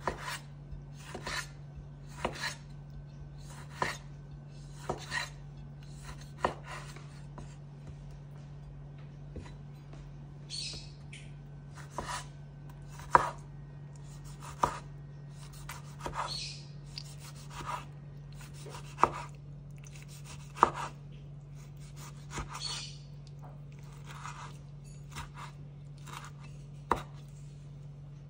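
Chef's knife dicing tomatoes on a bamboo cutting board: irregular sharp knocks of the blade on the wood, about one or two a second, with an occasional short scraping stroke.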